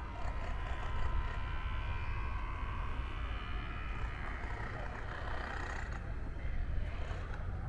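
Street traffic: motor vehicles running by with a steady low rumble, the noise swelling a little in the middle as one passes.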